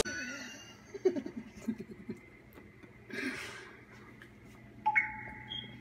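Knife slicing marinated chicken on a plate, faint scattered ticks and scraping. About five seconds in, an electronic beep with two steady tones starts sharply and lasts about a second.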